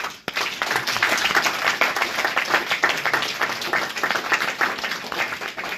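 A roomful of people applauding: many hands clapping in a dense, steady patter that starts suddenly.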